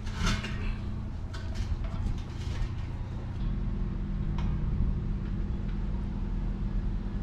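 A few light metallic clicks and knocks from an LPG gas bottle's valve and fitting being handled and connected, over a steady low hum that grows stronger about three and a half seconds in.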